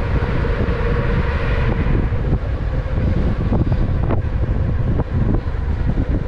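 Wind buffeting the microphone of a rider moving at speed on an electric unicycle: a loud, steady low rumble with a faint steady tone underneath.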